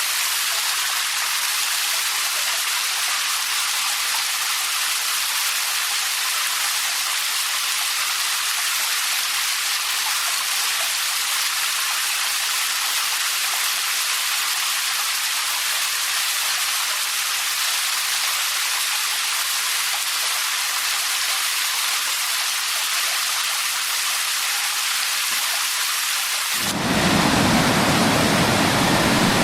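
An even hiss of falling water, bright and thin with little low rumble. About 27 seconds in it cuts abruptly to a louder, deeper rush of a waterfall with a strong low rumble.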